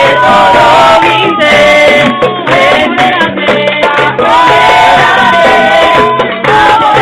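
Loud music with singing and a rattling shaker over a steady bass line.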